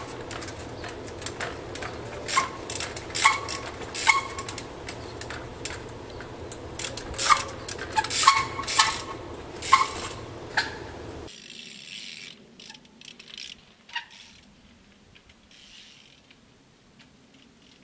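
Trials bike hopping on concrete blocks and pipes: irregular sharp knocks and clanks of the tyres and rims landing, several with a brief metallic ring from the bike. About 11 seconds in it turns much quieter, with only a few softer knocks.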